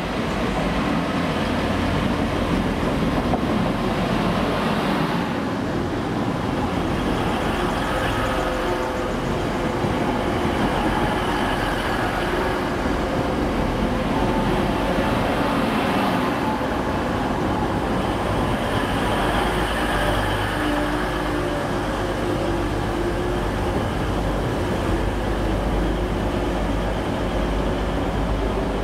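TransPennine Express passenger train drawing into the platform and slowing to a stop, with a continuous rumble of wheels on rails. A deep steady hum grows stronger in the second half.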